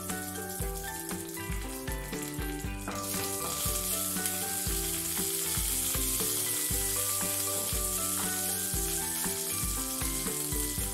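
Green chillies frying in hot sesame oil with mustard seeds and curry leaves, a steady sizzle that grows much louder about three seconds in. Background music with a steady beat plays underneath.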